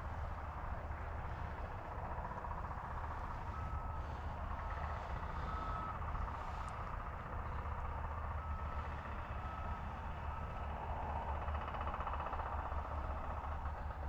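Steady outdoor background noise with a strong low rumble. A faint high beep sounds three times about four seconds in and three more times about eight seconds in.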